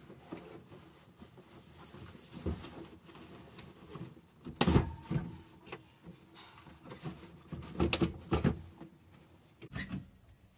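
Irregular knocks, bumps and scraping as a small fridge is manoeuvred and pushed into its slot against wooden cabinetry, with the loudest knocks about halfway through and again a few seconds later.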